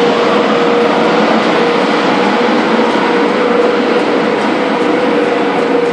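Class 92 electric locomotive departing at low speed, giving a steady electric hum on one pitch over a broad rushing noise. A few faint ticks come in the second half.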